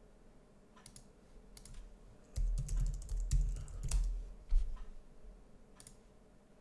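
Computer keyboard typing: a short run of keystrokes, most of them between about two and a half and four and a half seconds in, with one louder click near the end.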